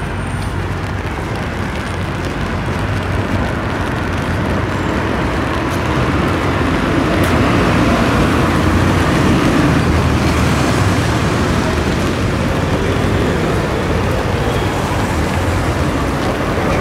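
City street traffic: a steady rumble and hiss of passing motor vehicles that grows louder about halfway through as vehicles come close.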